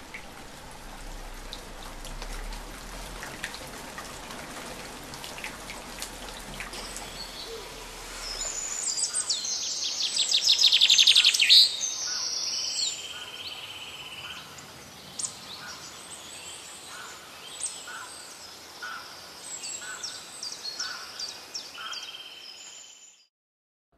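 Light drizzle pattering with scattered drips, then small songbirds chirping and trilling from about a third of the way in. The birdsong is loudest in a rapid trill near the middle, continues as separate calls, and cuts off suddenly shortly before the end.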